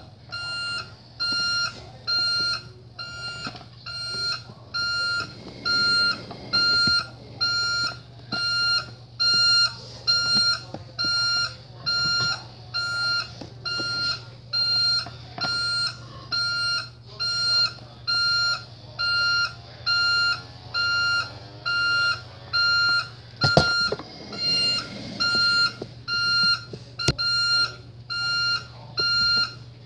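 Toy garbage truck's electronic sound module beeping steadily, about one high beep a second, over a low steady hum, with a couple of sharp knocks about three-quarters of the way through.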